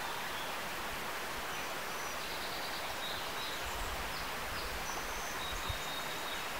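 Steady outdoor rushing noise with a few faint, high bird chirps over it, and a soft low thump near the end.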